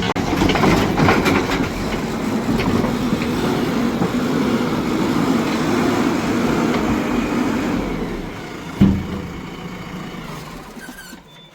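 JCB backhoe loader's diesel engine running, with a single thump about nine seconds in; the noise then fades away near the end.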